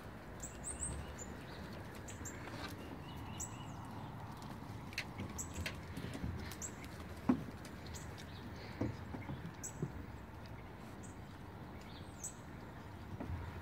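Puppies' paws scuffling and padding through wood-chip mulch around an upturned plastic kiddie pool, with small knocks and one louder thump about halfway through. Short, high bird chirps repeat every second or so in the background.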